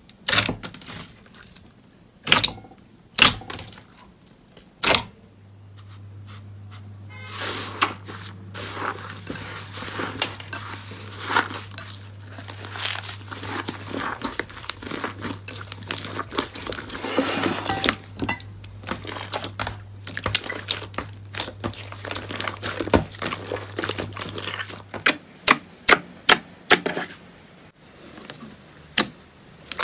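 Slime being squeezed and poked by hand: sharp separate pops and clicks, then a long stretch of dense crackling and crunching about seven seconds in, and single pops again near the end.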